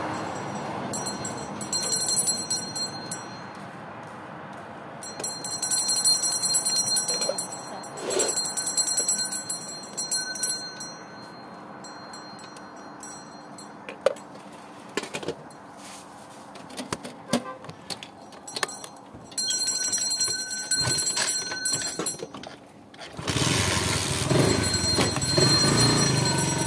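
Ice cream vendor's hand bell rung in bursts of a few seconds, with rapid clapper strikes and short pauses between bursts. A louder low rumble joins under the last few seconds.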